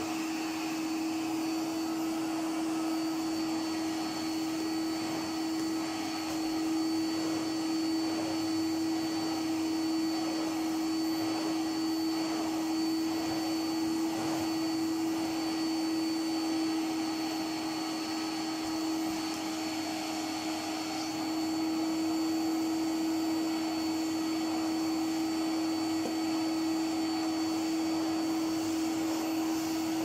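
A 1979 Hitachi CV-95N commercial tub vacuum cleaner with an 800-watt motor, running steadily at one pitch with a thin high whine, while its floor tool is pushed over carpet.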